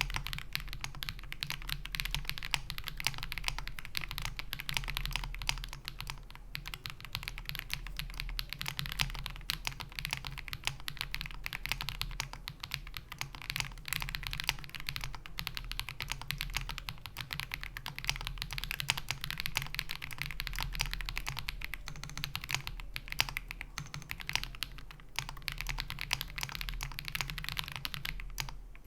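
Continuous fast typing on an Ikki68 Aurora R2 mechanical keyboard with lubed Akko Radiant Red linear switches on a polycarbonate plate. Rapid, closely spaced keystrokes with a few brief pauses.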